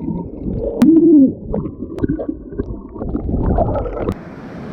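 Muffled underwater sound from an action camera below the sea surface: water churning, with a person's voice muffled by the water about a second in. Near the end the camera breaks the surface and the open-air hiss of wind and waves takes over.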